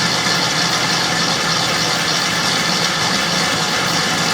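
Electric stand mixer running steadily at its top speed, 10, with a mixing attachment fitted: a constant motor whine over a steady low hum and whirring gear noise.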